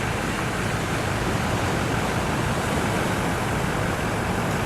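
Pacific Ocean surf: a steady rush of breaking waves.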